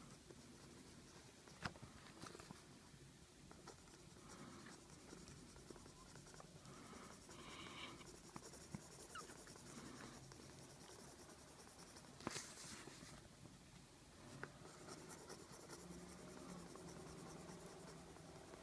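Colored pencil scratching faintly on paper as it shades in color, with two small sharp knocks, one about a second and a half in and one near twelve seconds.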